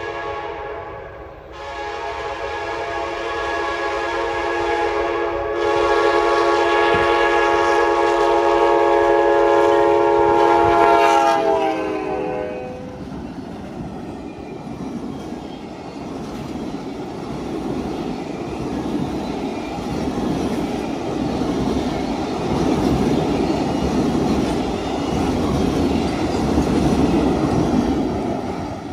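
Kansas City Southern office car train's locomotive horn, a multi-chime horn sounding two blasts at a grade crossing: a short one, then one held for about ten seconds that drops in pitch as the locomotive passes. After that, the passenger cars roll by with steady wheel clatter and rumble on the rails.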